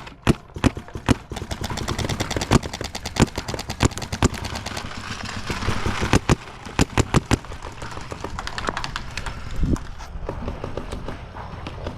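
Paintball markers firing: sharp pops in quick, irregular bursts, densest in the first half, then fewer and more scattered toward the end.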